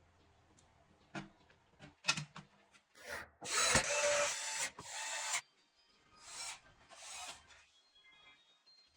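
Hands handling computer parts: a few sharp clicks, then bursts of rubbing and scraping, the loudest lasting from about three to five and a half seconds in.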